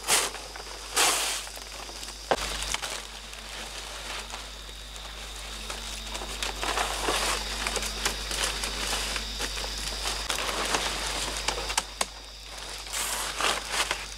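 Large fan-palm fronds rustling, crinkling and swishing as they are handled and moved about, in irregular sweeps, with one sharp click about two seconds in.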